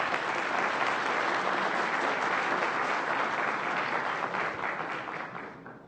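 Audience applauding: many hands clapping in a steady dense patter that fades and stops shortly before the end.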